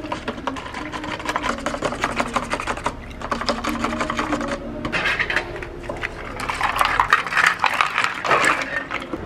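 A spoon stirring drinks in paper cups, a fast run of small clicks and scrapes, then ice cubes clattering as they are dropped into the cups, loudest a little before the end.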